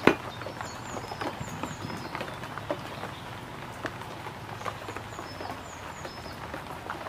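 A cleaver knocks once hard into a wooden chopping stump, then keeps up small taps and scrapes against the wood as it cuts and cleans small river fish. Small birds chirp with short, high, falling notes in the background.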